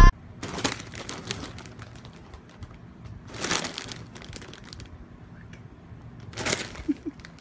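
Snack chip bags crinkling as a cat lying on them shifts and a hand touches them: several short rustles, the loudest about halfway through and another near the end.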